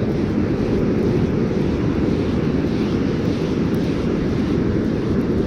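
Steady low rumble of wind buffeting the microphone, with ocean surf behind it, holding an even level throughout.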